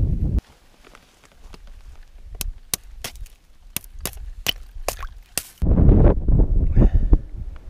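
Wind rumbling on the microphone. It cuts out suddenly under half a second in and comes back loudly about two seconds before the end. In the lull, a run of sharp separate clicks and taps sounds.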